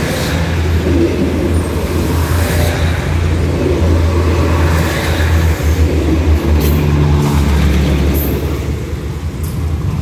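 Passenger train passing close by, a steady low rumble from its running gear and engines, with a few sharp clacks of wheels over the rail joints.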